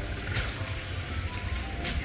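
Background music: short, evenly held notes over a low rumble, with a few faint clicks.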